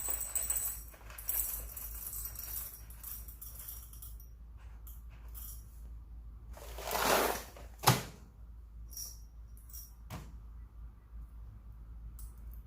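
Whole coffee beans poured into a dosing container to weigh out a dose, rattling for the first few seconds, then topped up in small pours with scattered clicks, a louder rush and a sharp knock about halfway through.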